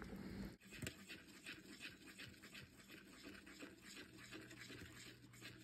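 Faint, rhythmic scraping of a spoon stirring thickening gravy in a pot, several strokes a second, following a brief click about half a second in.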